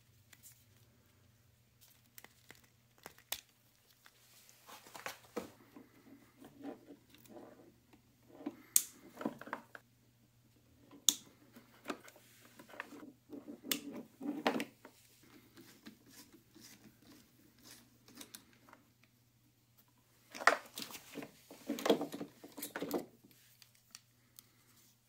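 Wiring being handled and pulled apart inside a battery lawnmower as its control circuit board is removed: crinkly rustling of wires and plastic with sharp clicks from spade connectors, in two busy spells, the second near the end. A faint steady low hum runs underneath.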